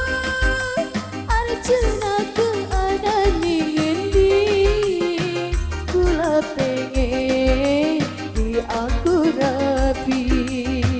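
Cirebon burok band music: a wavering, bending lead melody over a steady drum beat of about two strokes a second.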